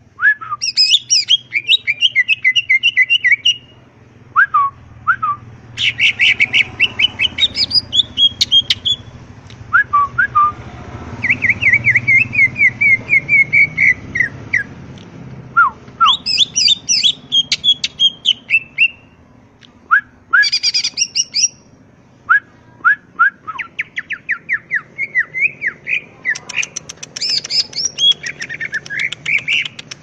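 Male cucak ijo (green leafbird) singing in full voice: loud, rapid trilled and chattering phrases a few seconds long with short breaks between them, and a few single down-slurred whistled notes.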